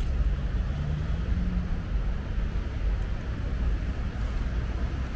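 Steady low rumble of road traffic, with an engine hum in the first two seconds.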